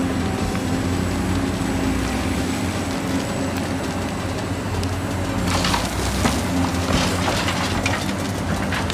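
A steady low mechanical drone like a heavy engine idling, with a run of short scraping, crackling clicks starting about five and a half seconds in.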